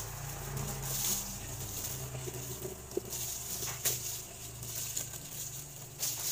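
Disposable plastic food-prep gloves crinkling in repeated bursts of hiss while a mango is cut by hand with a knife over a plate, with one sharp click a little before four seconds in.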